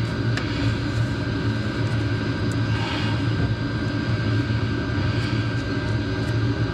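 A steady low mechanical drone with a faint steady whine above it, unchanging throughout, and a few faint light clicks.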